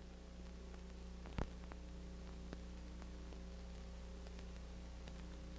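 Faint steady hum and hiss of an old film soundtrack, with a sharp click about a second and a half in and a few fainter ticks.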